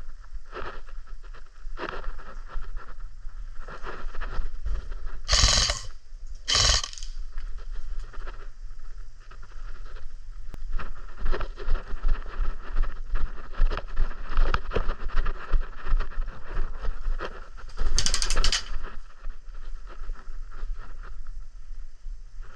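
Airsoft player's gear and movement, with rapid clicking, rattling and scraping. Three short, loud hissy bursts come about five and a half, seven and eighteen seconds in.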